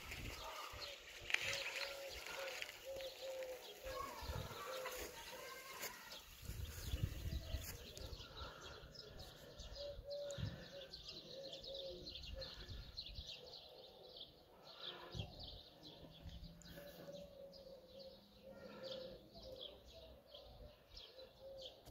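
Faint outdoor ambience: a bird calling in short repeated notes, with wind rumbling on the microphone now and then.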